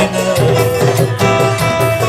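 Dholki hand drum played with music, with repeated drum strokes under a held melody.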